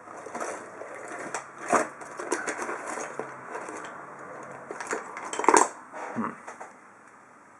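Metal clicking, scraping and clattering of a TESA padlock being worked apart by hand, with one louder metallic clack about five and a half seconds in.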